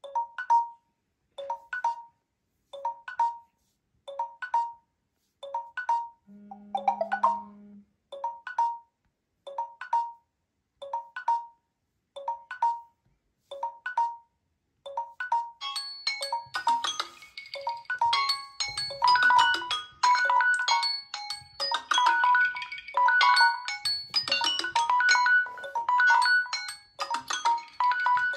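Samsung phone timer alarms: a short chime repeating about once a second from a Galaxy J3 whose countdown has run out, with a low buzz for about a second and a half near the middle of this stretch. About halfway through, a second, fuller melodic alarm tune from another Samsung phone starts and plays over it.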